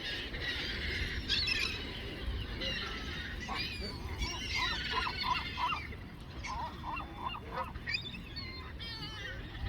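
A flock of geese honking, many short overlapping calls, with a quick run of honks between about four and six seconds in.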